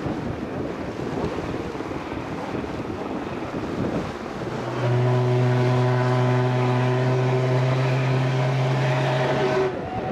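Wind rushing over the microphone, then a ship's horn sounds one long, steady blast of about five seconds, starting about halfway through and cutting off abruptly.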